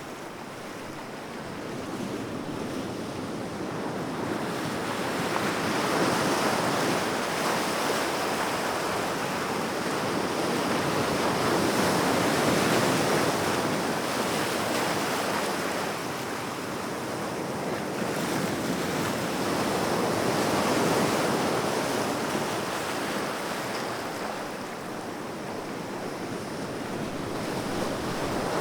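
Ocean waves breaking on a shore, a continuous wash of surf that swells and subsides every several seconds.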